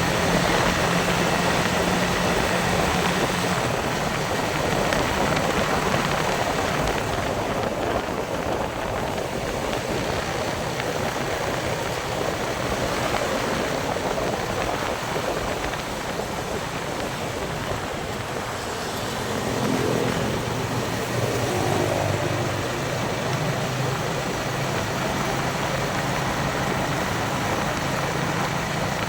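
Yamaha Vixion single-cylinder motorcycle engine running on the move, with steady wind and road noise on the microphone. The engine note fades back in the middle, then comes up again with a rising rev about two-thirds of the way through.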